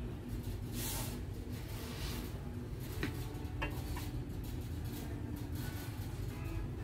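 Steady low hum of a shop interior, with a few faint light clicks about three to four seconds in.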